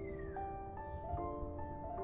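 Background music: a slow, gentle melody of single held notes stepping up and down, over a low steady rumble.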